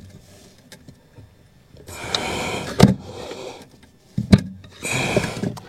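Tyre irons levering a scooter tyre's bead over the rim by hand: rubber and metal scraping, with two sharp metallic clicks about a second and a half apart.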